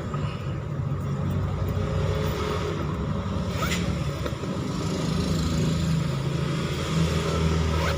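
A motor vehicle's engine running steadily as a low rumble, with a short rising squeak a little before halfway.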